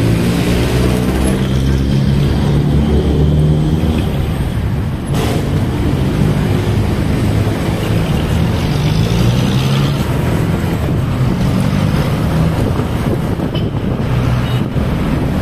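Vehicle engines running in slow road traffic, heard from close behind a jeepney: a pitched engine drone that rises and falls, with one sharp click about five seconds in.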